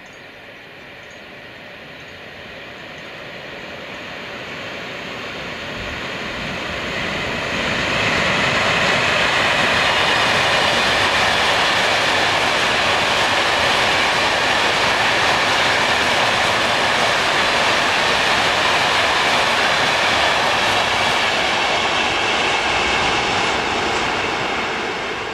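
Long freight train of covered hopper wagons behind an electric locomotive, passing close by on the rails. The rolling wheel noise swells for about eight seconds as it approaches, holds steady as the wagons go by, and fades near the end.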